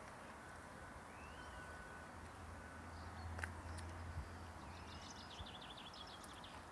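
Faint outdoor background with a low steady hum and birds chirping: a couple of short calls, then a quick twittering series about five seconds in.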